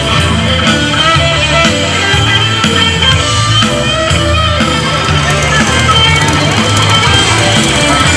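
Live rock band playing, electric guitar over a pulsing bass line.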